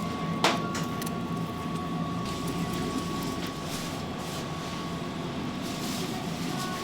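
Steady machine hum with a constant high tone, with a sharp click about half a second in and a few lighter clicks after it.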